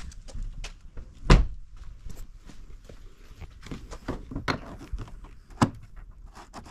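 Range Rover Sport hood being opened: a series of clicks, knocks and latch sounds, with one loud thunk about a second in and another sharp knock near the end as the safety catch is released and the hood lifted.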